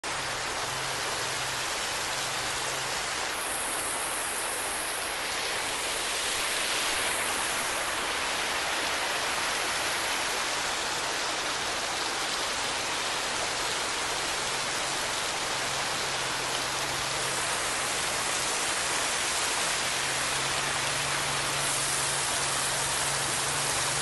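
Small waterfall pouring as a curtain of water over rocks into a pool: a steady splashing rush of falling water.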